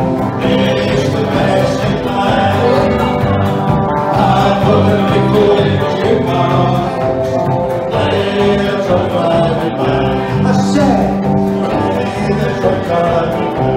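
Country band playing with sung vocals.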